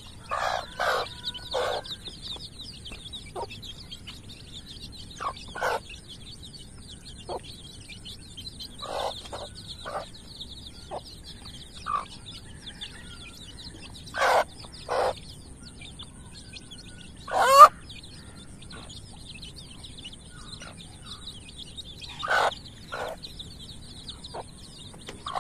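Chickens clucking in short, scattered calls, with one longer, louder call bending up and down in pitch partway through, while a brood of chicks keeps up a faint, high cheeping as they peck at scattered maggots.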